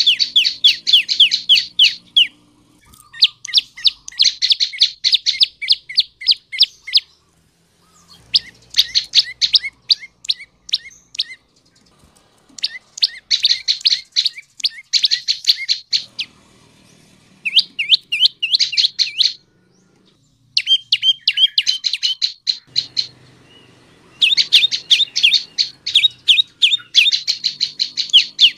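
Prenjak lumut singing loud, rapid trilled phrases of sharp high chips, about seven phrases of two to four seconds each with short pauses between them.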